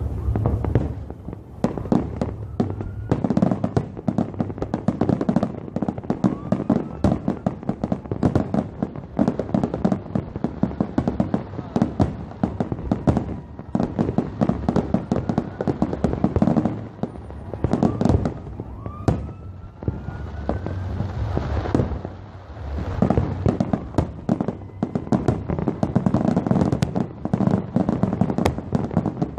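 Fireworks display: a dense run of bangs and crackles, with a few rising whistles and a brief hiss a little past two-thirds of the way in.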